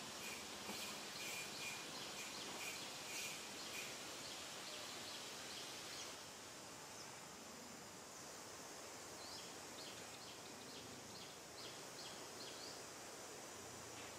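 Insects chirping in quick pulses for the first few seconds, then a run of short, rising bird chirps in the second half, over a faint steady hiss.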